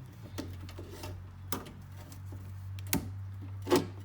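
Scattered clicks and knocks, about six, from working the lock rod loose inside an opened car door. The loudest knock comes near the end, all over a steady low hum.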